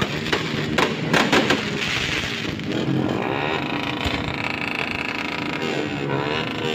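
Fireworks going off: several sharp bangs in the first second and a half, then a steadier din.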